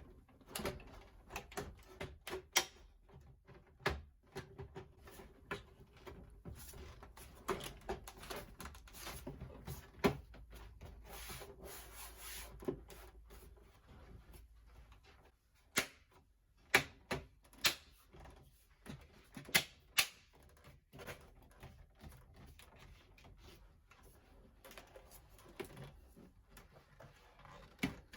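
Plastic rear case of an all-in-one PC being handled and fitted back on: irregular sharp clicks and light knocks with soft plastic rubbing between them, and a run of louder clicks a little past the middle.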